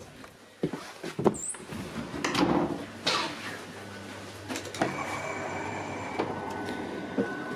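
Train sliding doors: several knocks and clunks and a short falling hiss, followed by steady high tones.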